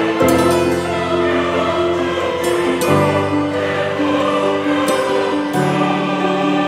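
Background music: choir-like voices singing held chords that change about every three seconds.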